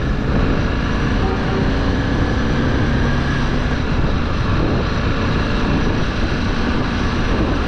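Motorcycle riding along a street: steady engine drone mixed with wind rush, with no sudden events.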